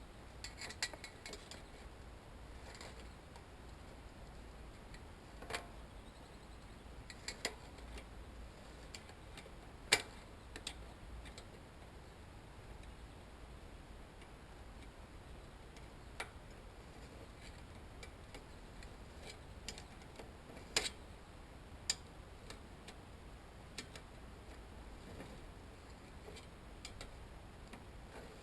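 Scattered sharp metallic clicks and taps of hand tools and loose parts knocking against each other while a bicycle's pedal and bottom-bracket bearing assembly is worked apart. They come irregularly, a second or a few seconds apart, the loudest about ten seconds in and again about two-thirds of the way through.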